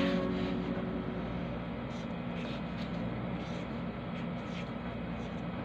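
Steady low room hum, with a few faint scratches of a pen writing on paper.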